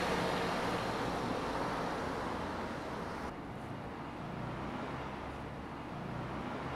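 Street traffic with buses passing: a steady rush of road noise over a low engine rumble, turning a little duller about three seconds in.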